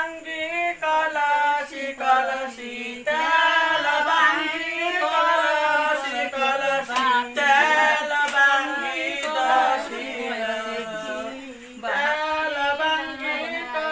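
Women's voices singing a Bengali village wedding song (biyer geet) together, with no instruments, in long held phrases that break briefly about three seconds in and again near the end.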